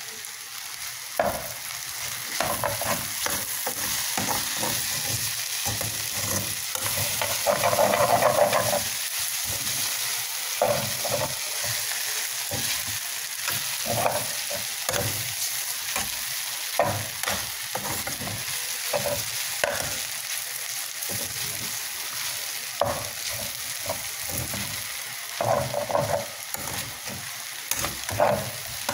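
Chow mein noodles and vegetables frying in butter in a metal pan with a steady sizzle, while a utensil scrapes and clacks against the pan as they are stirred. The stirring is busiest about eight seconds in and again near the end.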